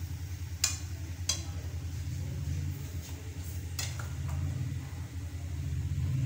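A steady low mechanical hum with a rapid flutter, with a few sharp clicks in the first four seconds.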